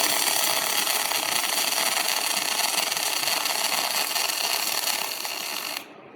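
Robotic welding arc hissing steadily, starting abruptly and cutting off sharply near the end.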